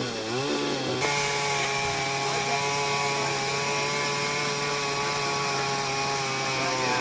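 A small engine running at a steady speed, its pitch dipping and rising briefly right at the start.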